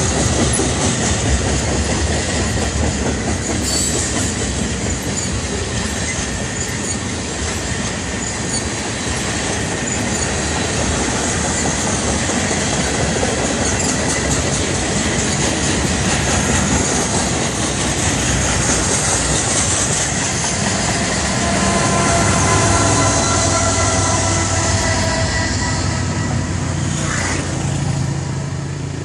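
Freight cars rolling past on steel rails: a steady, loud rumble of wheels on track with rhythmic clatter and some wheel squeal. In the last several seconds a steady humming drone joins in, then the sound fades as the end of the train goes by.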